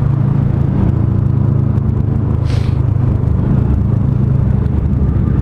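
Yamaha MT-03 motorcycle engine running steadily at low revs, with a brief hiss about two and a half seconds in.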